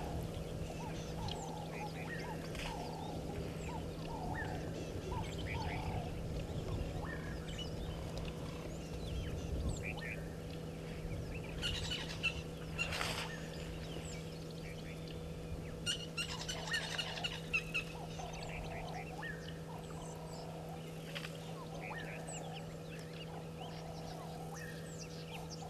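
Various birds chirping and calling in short scattered notes, with a busier run of calls past the middle, over a steady low hum.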